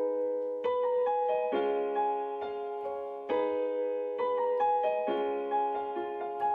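Piano or keyboard music: chords struck about once a second and left ringing.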